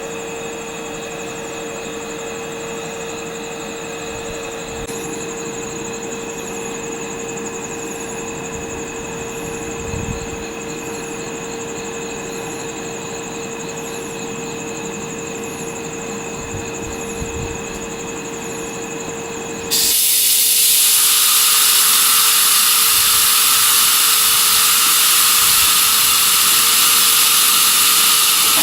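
Steady electrical hum from EF64 electric locomotives standing at the platform, with faint high chirps about once a second. About twenty seconds in, a loud air hiss starts suddenly and keeps on.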